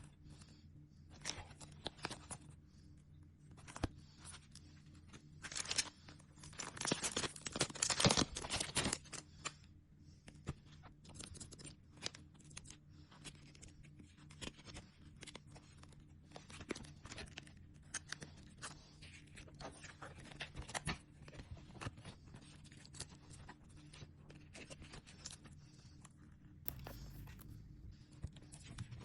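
Sticker sheets and their plastic packaging being handled and peeled: rustling, crinkling and small clicks, with a louder stretch of crinkling about six to nine seconds in. A faint steady hum runs underneath.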